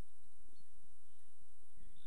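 Outdoor ambience dominated by an uneven low rumble of wind on the microphone, with a few faint bird chirps.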